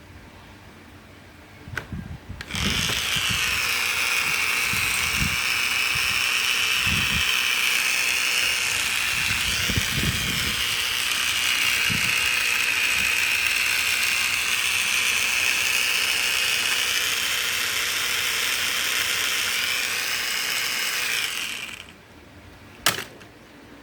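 A small electric motor whirring steadily at high speed for about twenty seconds, starting about two and a half seconds in and cutting off suddenly near the end, with a few low knocks from handling. A single sharp click follows shortly after it stops.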